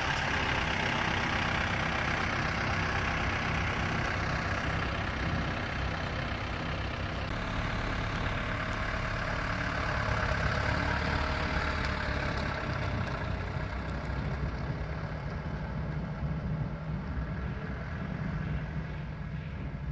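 1994 Toyota Dyna 250 fire truck's 14B 3.7-litre diesel engine running steadily.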